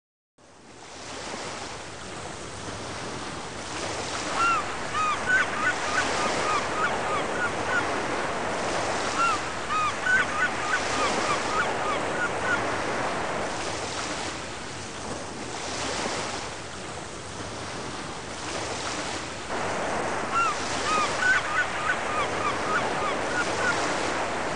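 Sea waves washing in slow surges, swelling and easing every few seconds, with clusters of short high chirping cries over them.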